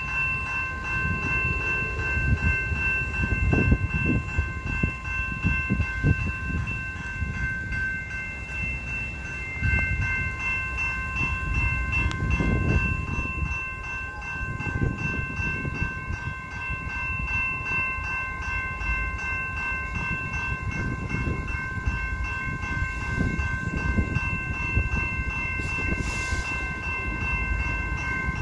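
Railway level-crossing warning bell ringing continuously, its ringing tones held steady throughout, over an uneven low rumble.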